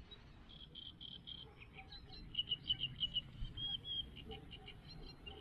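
Small bird chirping faintly in quick runs of short, high notes, over a low rumbling background.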